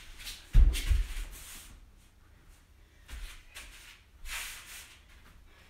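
A person exercising barefoot on a thin mat over a wooden floor: a heavy thump about half a second in, then rustling and feet scuffing and pivoting, with a softer thump around three seconds in.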